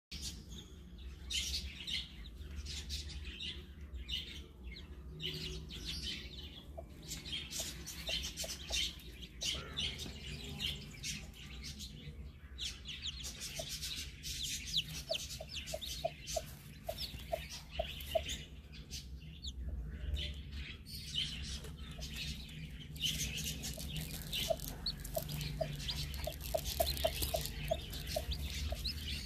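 Newly hatched chicks peeping high and thin beside a broody hen, who answers with soft low clucks in quick runs of about three a second.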